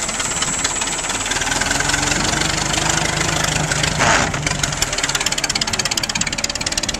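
1919 Fordson tractor's four-cylinder side-valve engine running with a rapid, even firing beat as the tractor drives off on its steel wheels. A short louder burst of noise comes about four seconds in.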